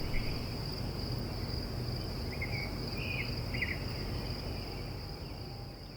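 Steady high-pitched insect chorus, with a few short chirps about halfway through, slowly fading out.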